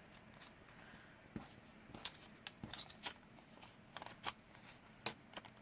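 Paper and card stock being handled and shuffled, with soft irregular rustles and light taps.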